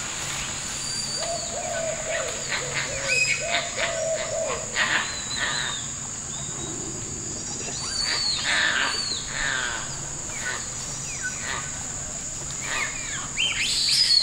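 Night rainforest ambience: a steady high-pitched insect drone, with many short chirping calls scattered through and a run of lower, arching calls in the first few seconds. Leaves and branches rustle as the monkeys climb.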